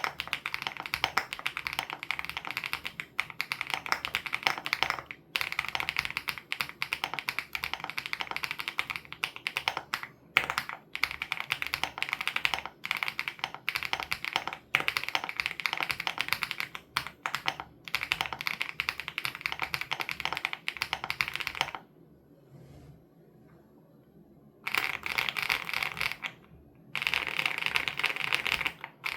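Fast typing on a WOB Crush 80 Reboot mechanical keyboard with Hyacinth switches: dense runs of key clicks with short breaks between words and phrases, and a pause of about three seconds near the end before the typing resumes.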